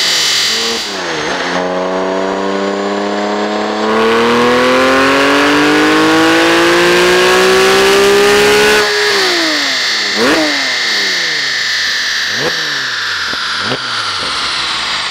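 Porsche GT3 RS flat-six with an Akrapovič exhaust on a dyno making a long pull: the engine note climbs steadily for about seven seconds, then the throttle shuts and the revs fall away, with a few quick throttle blips and a high whine winding down as the rollers slow.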